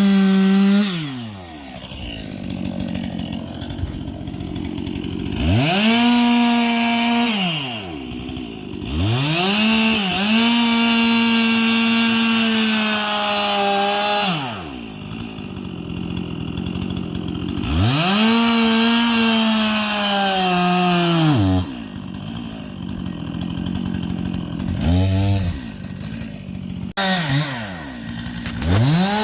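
Stihl two-stroke chainsaw revved to full throttle in four long runs of several seconds each, dropping back to idle between them. There is a short blip of throttle about five seconds before the end, and it revs up again at the very end.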